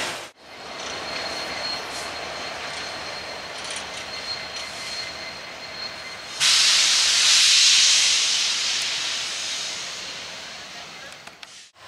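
BNSF diesel freight train with coal hoppers rolling past, with a thin steady squeal over the wheel noise. About six and a half seconds in, a loud hiss starts suddenly, then slowly fades.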